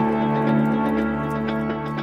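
Background music of sustained held chords with scattered light high notes, easing slightly in loudness.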